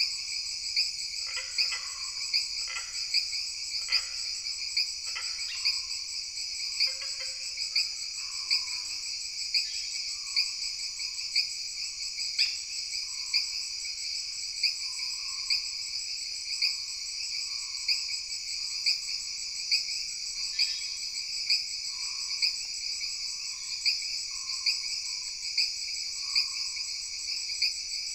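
Tropical jungle ambience: a dense, steady chorus of trilling insects, pulsing louder about once a second. Frogs call repeatedly underneath, most busily in the first several seconds.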